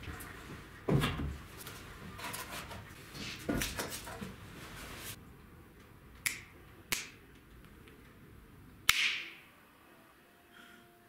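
Finger snaps: two sharp snaps about six and seven seconds in, then a louder one near nine seconds with a short trailing ring, after a few dull knocks in the first half.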